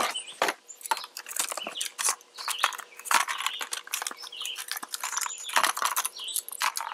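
Crackling and clicking of a plastic blister pack of whistles being handled, in quick irregular bursts. Birds chirp in the background.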